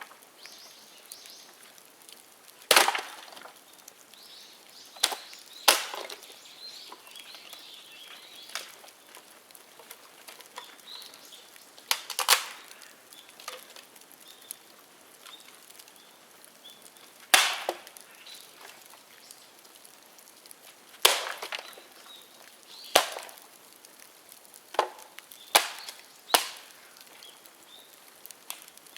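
Dead bamboo burning in an open bonfire, popping and cracking sharply about ten times at irregular intervals, with a faint crackle of the fire between the pops.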